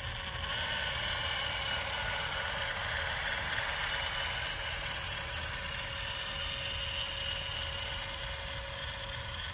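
Electric caulking gun running steadily with an even motor whine as it pushes a bead of thick windshield urethane out of the cartridge.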